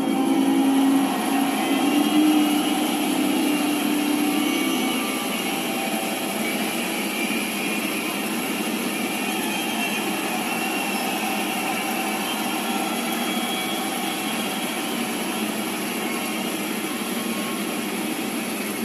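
Steady road and engine noise of a moving car, heard from inside the cabin. It is a little louder for the first few seconds.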